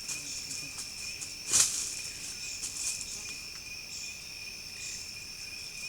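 Rainforest insects chirring in a steady chorus, heard as two unbroken high tones. A brief rustle about a second and a half in is the loudest sound.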